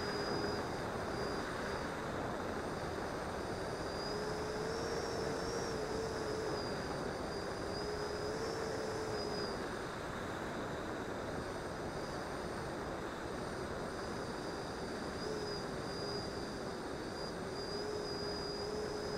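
The 90 mm electric ducted fan of an E-flite Viper 90 RC jet running in flight, heard from on board: a steady high whine with a lower hum beneath it, both rising and falling slightly in pitch, over a continuous rush of airflow.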